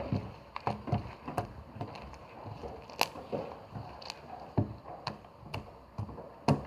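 Slime being squished and pressed in the hands, making irregular wet clicks and small pops, a few each second.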